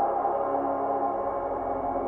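Ambient music: a steady drone of held, ringing tones.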